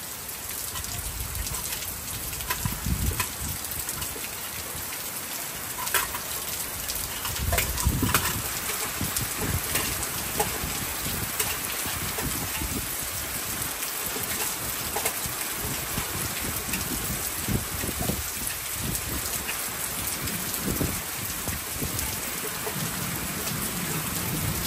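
Steady heavy rain falling, with scattered drops pattering and low rumbles of thunder a few times.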